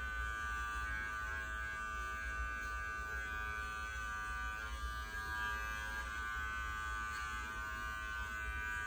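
Electric pet grooming clippers running steadily with an even, unbroken buzz while shaving a puppy's coat.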